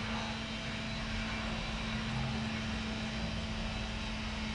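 Steady background hum and hiss with a constant low tone underneath, unchanging throughout, with no clicks or other events.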